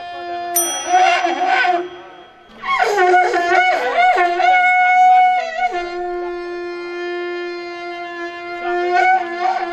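Conch shells (shankha) blown in long held notes, with wavering, bending pitch at times and a brief break about two seconds in.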